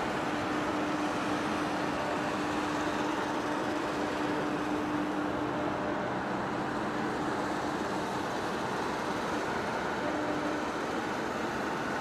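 Large heavy-duty face lathe running: a steady whir of its electric drive motor and gearbox, with a faint steady hum running through it.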